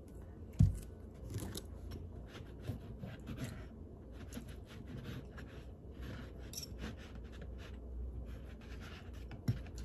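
Metal knife and fork cutting pancakes on a plate, with repeated scraping and light clicks of cutlery on the dish. A dull thump sounds about half a second in, as the syrup bottle is set down, and a smaller one near the end.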